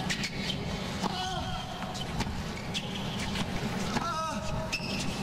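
Hard-court tennis rally: racket strings hitting the ball back and forth, with tennis shoes squeaking on the court and a player grunting on his shot about a second in and again about four seconds in, over a low, steady crowd hum.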